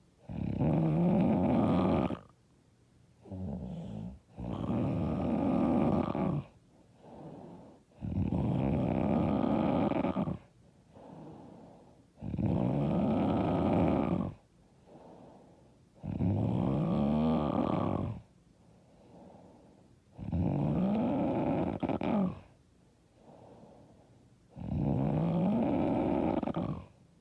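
A woman snoring loudly and rhythmically: seven long snores of about two seconds each, coming roughly every four seconds, with quieter breath sounds between them.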